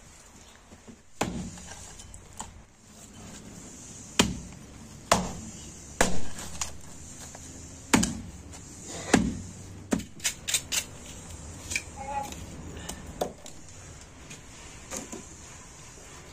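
A small axe chopping through tandoor-roasted meat on a wooden block: sharp chops at uneven intervals, with a quick run of four or five chops about ten seconds in.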